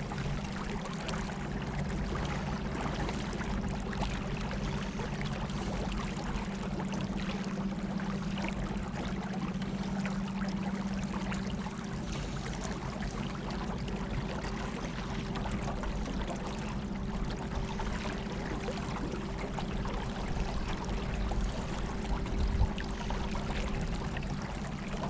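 Water rushing and splashing along the hull of a small battery-powered boat moving on the river current, over a steady hum from its electric motor. Part of the hum drops away about halfway through.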